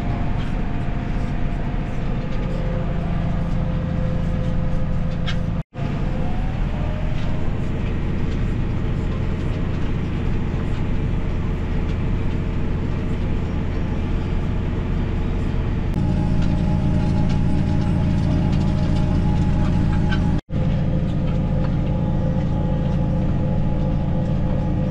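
Tractor engine running steadily under load while pulling a seed drill at work, its note shifting slightly about sixteen seconds in, with two brief dropouts.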